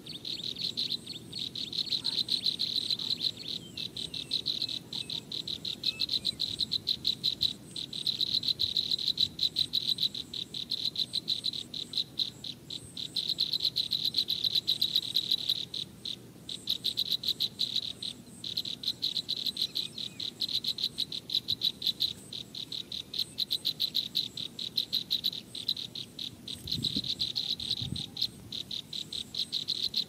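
Insects chirping in a rapid, even, high-pitched pulsing trill that comes in bouts of a couple of seconds with short breaks between them.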